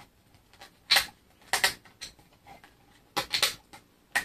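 Several short clicks and rattles of a 3D-printed plastic blade cover and its screws being handled, separate knocks with quiet between.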